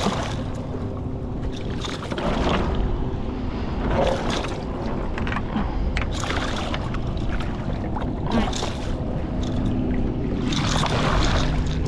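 A hooked striped bass thrashing at the surface beside a boat as it is landed by hand: several short bursts of splashing over a steady low rumble.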